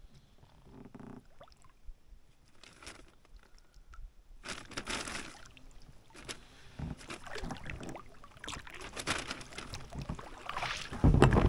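Small boat being rowed: quiet for the first few seconds, then oars dipping with water splashing and trickling, and a single heavy knock near the end.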